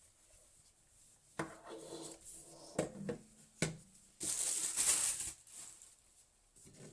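Electric kettle being handled: three hard knocks and clinks, each with a brief ringing, then a hiss lasting about a second.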